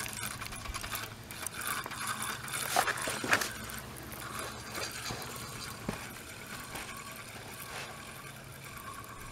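Fishing reel being wound in to retrieve a hooked fish, with rapid ticking from the reel and a couple of louder knocks of handling about three seconds in.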